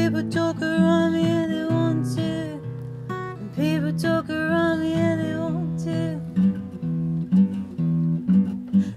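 A woman singing a slow song live, accompanied by a single acoustic guitar.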